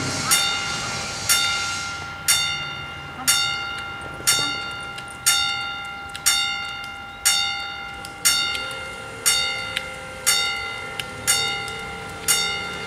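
Level-crossing warning bell striking about once a second, each stroke ringing on and fading before the next: the crossing is closing for an approaching train.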